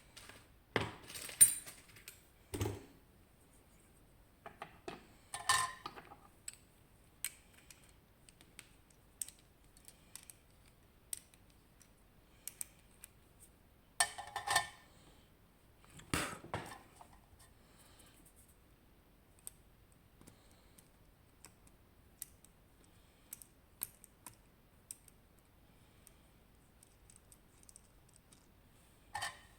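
Scattered metallic clicks, taps and clinks from an Abloy Sentry padlock and tools being handled, with a few louder clatters about a second, five seconds, fourteen and sixteen seconds in and small isolated ticks between them.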